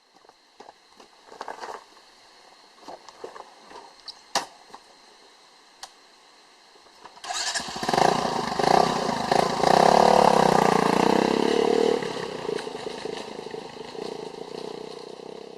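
A Honda XR125L's single-cylinder engine starts about seven seconds in and runs with a few revs, then settles lower and fades near the end. A few light clicks and knocks come before it starts.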